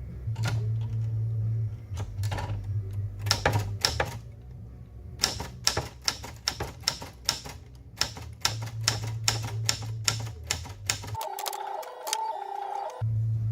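Adler J2 manual portable typewriter being typed on: sharp key strikes in irregular runs with short pauses. Near the end the typing gives way to a steadier, higher-pitched sound for nearly two seconds.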